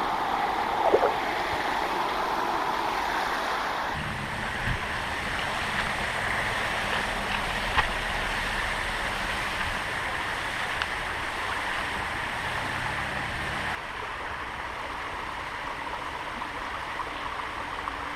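Creek water rushing steadily. From about four seconds in until about fourteen seconds, a low rumble joins it.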